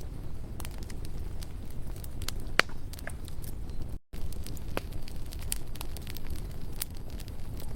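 Campfire burning: wood crackling with scattered sharp pops over a steady low rumble of the flames, one louder pop about two and a half seconds in. The sound drops out for a split second just after four seconds in.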